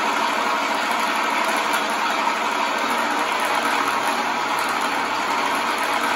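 GT Power engine sound box in an electric RC Corsair playing a simulated aircraft engine idling steadily through its onboard speaker.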